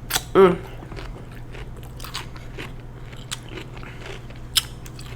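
Close-miked eating sounds: chewing and biting with scattered small wet mouth clicks, and a short voiced hum about half a second in.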